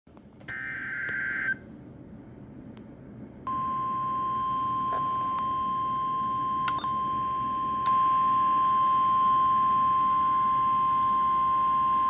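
NOAA Weather Radio alert coming through a Uniden BC125AT scanner's speaker: a one-second burst of SAME digital header data, then the steady 1050 Hz warning alarm tone, which announces an emergency alert. The tone steps louder about eight seconds in as the volume is turned up, and a few sharp clicks of key presses sound over it.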